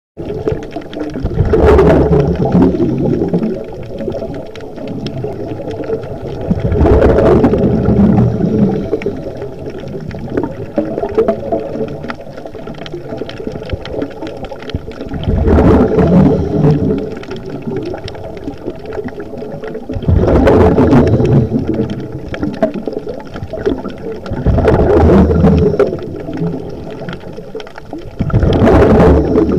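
Scuba diver's exhaled breath bursting out through a regulator as bubbles, heard from underwater: six rumbling, bubbling surges every four to eight seconds, with quieter gurgling between breaths.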